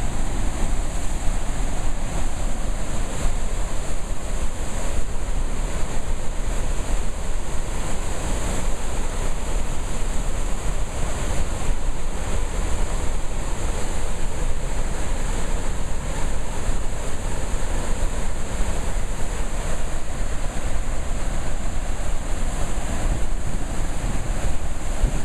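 Water pouring through open dam spillway gates into churning white water below: a loud, steady rush with no let-up.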